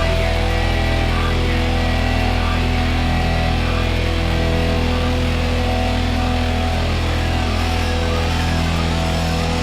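Rock music with heavy, sustained chords and no singing, playing steadily at a loud level.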